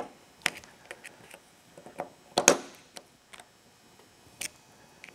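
Irregular small metal clicks and taps as a circlip is pushed down around its edges into the bore of a Honda TRX400EX rear brake master cylinder to seat it in its groove, with one sharper click about two and a half seconds in.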